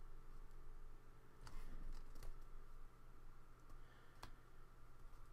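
A few faint clicks and paper handling sounds from fingers pressing a small sticker tab onto the edge of a paper planner page.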